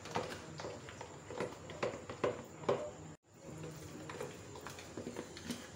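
A mixing utensil stirring and folding flour into thick chocolate cake batter, with irregular soft taps and scrapes against the bowl several times a second. The sound drops out for a moment a little past halfway.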